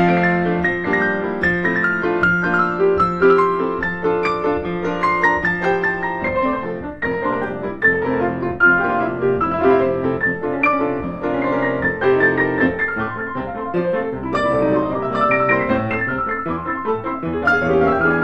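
Steinway grand piano played four-hands by two pianists: a busy classical passage of quick notes over held bass notes.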